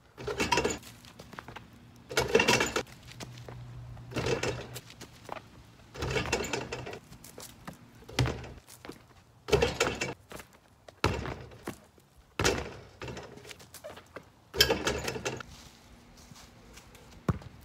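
Basketball dunk attempts on a portable hoop: a run of thuds and clangs every second or two as the ball hits the rim and backboard and bounces, several followed by a short ringing rattle of the hoop.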